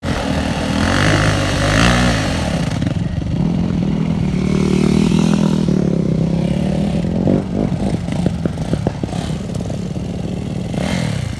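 Dirt bike engine revving up and down twice, then holding steady revs, followed by a spell of sharp clicks and rattles over the running engine.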